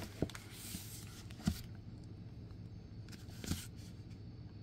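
Books being handled: a rustle of thin paper pages for about the first second and a half, with soft knocks about a second and a half in and again near three and a half seconds as a book is moved and the Bible is settled open.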